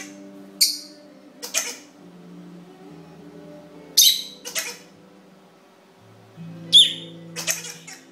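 Lovebird giving a handful of short, sharp chirps a second or two apart, one near the end with a quick sweep in pitch, over faint background music.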